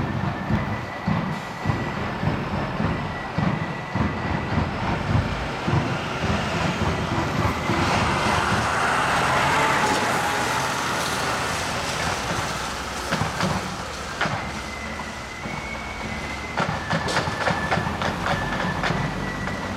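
Marching band playing: drums beating a steady march rhythm under a high, held melody line that steps from note to note.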